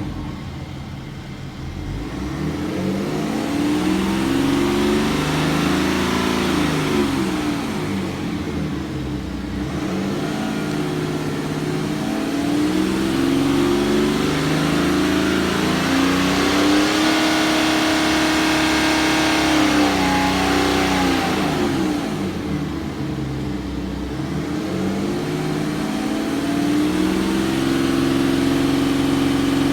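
High-mileage BMW N57D30 3.0-litre straight-six turbodiesel revved up and held several times, its pitch rising, holding and falling back. At raised revs it makes a tapping, misfire-like sound, which the owner thinks may be normal for this engine but louder than in others.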